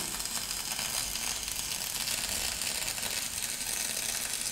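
Simulated MIG welding arc sound from a Soldamatic augmented-reality welding trainer: a steady crackling hiss while the virtual weld runs.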